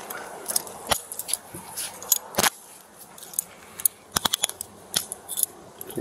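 Metal handcuffs clicking and clinking as they are ratcheted shut on a person's wrists: a scatter of sharp clicks, with a quick run of them about four seconds in.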